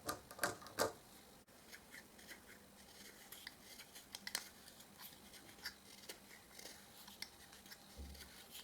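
Faint, irregular scrapes and ticks of a wooden dowel's end being pared down by hand, with a few sharper clicks in the first second.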